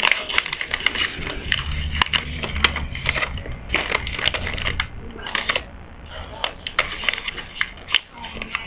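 Paper crinkling and crackling in quick, irregular crackles as a sheet is folded and creased by hand.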